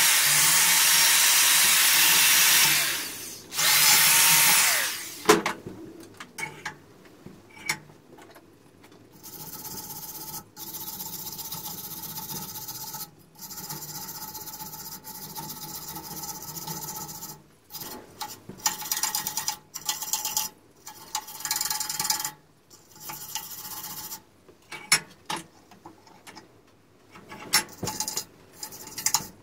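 A power drill runs against the rusty steel blades of an old lawnmower reel for about five seconds, with a short break about three seconds in. It then gives way to hand wire-brushing and scraping of the rust from the blades in short, uneven strokes with pauses.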